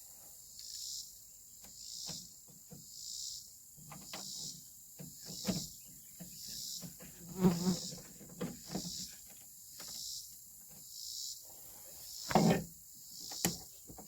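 Crickets chirping steadily in even pulses, about one and a half a second. Scattered clicks and knocks come from hand work on a truck door, the loudest twice: about halfway through and near the end.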